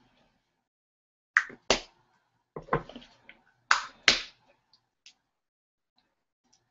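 Sharp taps and smacks, about five in all, most in close pairs: handling noise of objects knocked close to the microphone.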